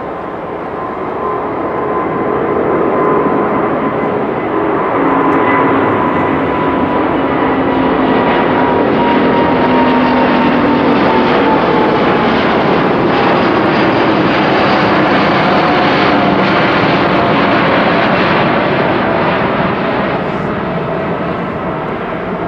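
Airbus A350-941 airliner's two Rolls-Royce Trent XWB turbofans at takeoff thrust during the initial climb: a loud, steady jet roar with whining tones that slowly fall in pitch as the aircraft passes. It swells over the first few seconds and eases a little near the end.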